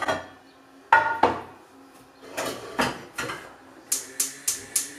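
Metal saucepan and pot clanking and clattering on a gas hob, the loudest knocks ringing briefly. Near the end, a quick even run of sharp ticks, about three or four a second: the hob's spark igniter clicking as a burner is lit.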